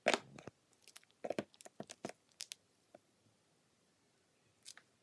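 Plastic toy pieces and moulds handled on a tabletop: a cluster of sharp clicks and taps in the first half second, scattered clicks over the next two seconds, and one more near the end.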